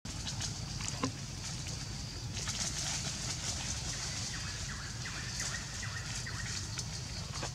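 Forest ambience: a steady high hiss over a low rumble, with a light knock about a second in and a quick run of short chirps in the second half.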